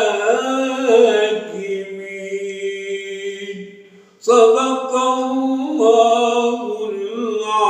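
A man's voice chanting Quran recitation in a drawn-out, melodic style, holding long notes. He pauses for breath about four seconds in, then resumes.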